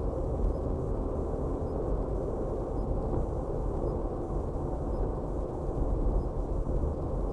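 Steady road and engine rumble inside a moving car's cabin, picked up by a dashboard camera, with no sudden sounds.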